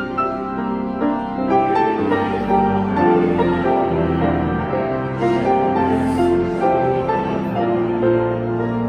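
Piano playing a slow hymn in held chords.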